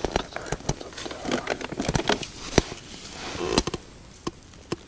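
Rustling, crackling and irregular knocks and slaps as a freshly caught crucian carp is taken out of the landing net and handled, busiest in the first three seconds or so and settling near the end.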